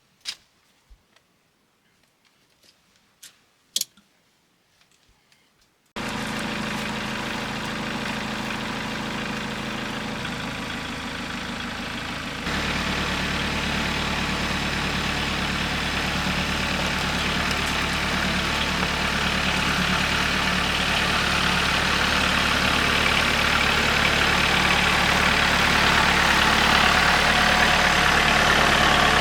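A few faint clicks, then an engine running steadily, cutting in abruptly about six seconds in and growing louder again a few seconds later.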